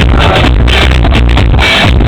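Loud electronic dance music in a DJ set: a driving four-on-the-floor house/techno beat with heavy bass.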